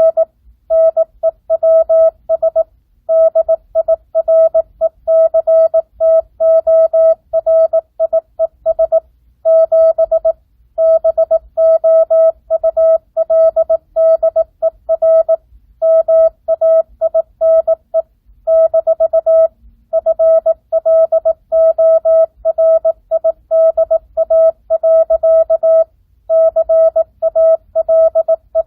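Morse code sent as a single steady pitch keyed on and off at 18 words per minute, non-Farnsworth (characters and spacing at full speed): quick runs of short dots and longer dashes, broken by brief pauses between words.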